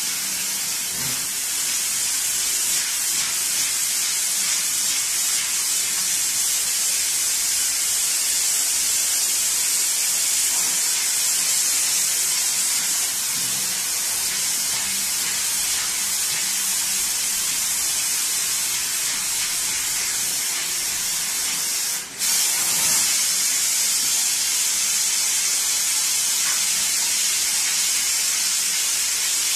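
Water spraying steadily from a hand-held sink spray nozzle onto a gum-oil print, washing off the excess oil ink of the first layer: an even hiss that cuts out for a moment about three quarters of the way through.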